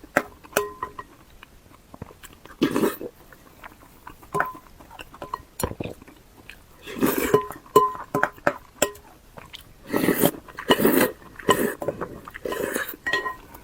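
Close-miked eating sounds: irregular bites and wet chewing, coming in clusters that grow busier about halfway through.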